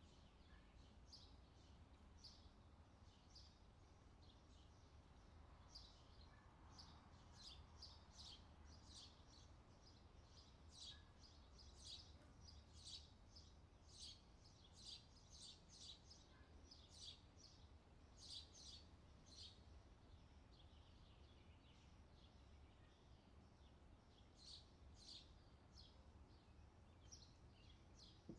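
Faint summer birdsong: many short, high chirps from songbirds, busiest in the middle of the stretch.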